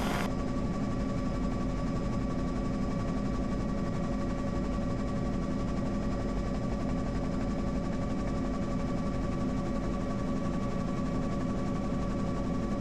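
Steady helicopter cabin drone: an even hum carrying several steady tones. A higher radio-like hiss cuts off just after the start.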